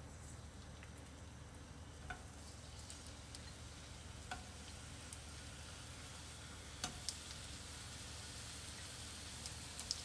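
Sliced onion rings going into hot oil in a frying pan, a faint sizzle that grows slightly as more slices go in. A few short light ticks are heard as pieces land.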